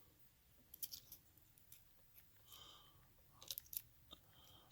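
Faint small metal clicks and scrapes of a thin tension wrench being worked into a padlock's keyway, a few clicks about a second in and a small cluster near the end.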